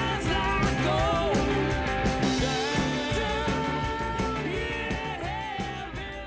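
Intro music: an upbeat rock song with a sung melody over a steady beat, fading out near the end.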